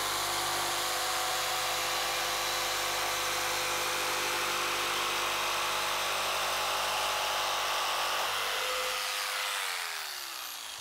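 Corded jigsaw cutting through plywood, running steadily. Near the end the trigger is released and the motor winds down with a falling pitch.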